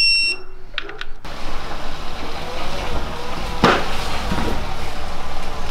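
A short electronic beep, then a vehicle engine running steadily with a low rumble, and a single sharp knock near the middle.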